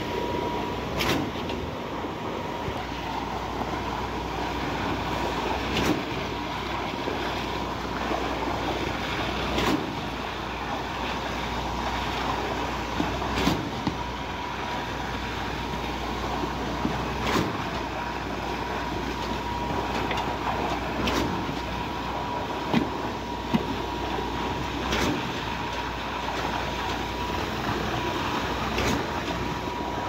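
Concrete pump running during a slab pour: a steady mechanical drone with a thin, steady whine, and a sharp knock about every four seconds as the pump changes stroke.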